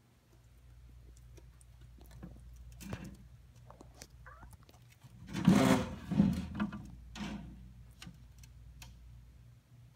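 Handling noise from a phone camera being moved: scattered faint clicks and rustles over a low steady hum, with a louder scuffing rustle about five and a half seconds in and smaller ones around three and seven seconds.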